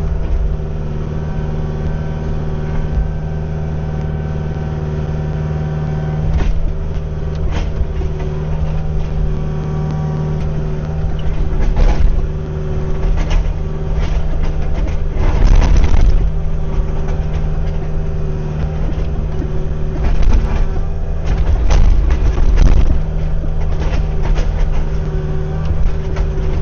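Kubota U55-4 mini excavator's diesel engine running steadily while it digs. Several sharp knocks and scrapes come through, louder stretches of work in the middle and later on, as the bucket works dirt over solid rock.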